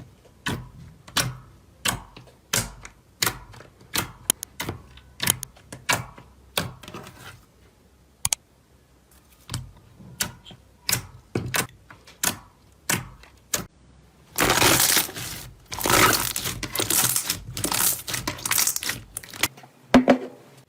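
Slime being pressed and worked by hand, with sharp clicking pops of trapped air at a steady pace of a little under two a second. About two-thirds of the way in, a denser, louder stretch of crackling follows.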